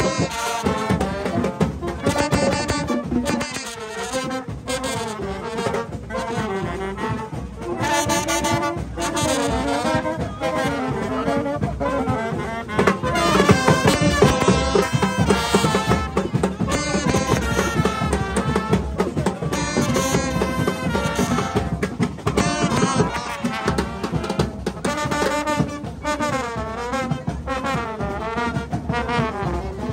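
Street brass band playing a tune in phrases, with saxophones, trombones and trumpets carrying the melody over drumming.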